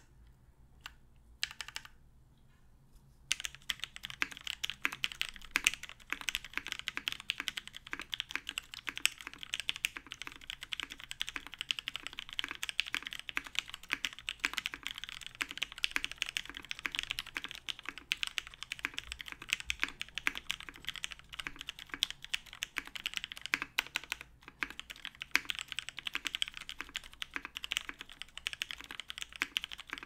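Typing on a Matrix 8XV 2.0 mechanical keyboard with lubed Milky-top Tealios linear switches in a top-mounted aluminium plate, DCS keycaps, no dampening foam. A few single keystrokes at first, then from about three seconds in, continuous fast typing with a brief pause late on.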